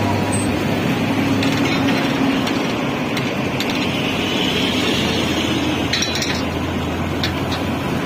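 Niigata NFB6W wheeled asphalt paver running steadily while laying hot-mix asphalt, a constant diesel engine drone and machinery hum. A few light metallic clinks come through it.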